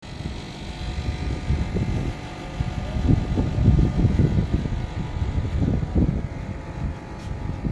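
Low, uneven rumble of wind buffeting the phone's microphone outdoors, over a steady distant city hum.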